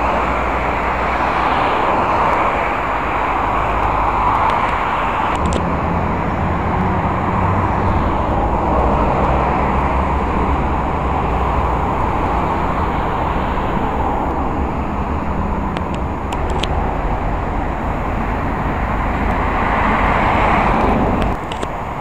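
Outdoor road traffic: vehicles passing one after another in a steady wash of noise. A low engine rumble sits underneath from about five seconds in until about seventeen seconds.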